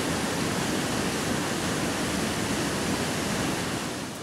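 Rushing whitewater of a rain-swollen mountain stream, a steady, even rush of water that fades out near the end.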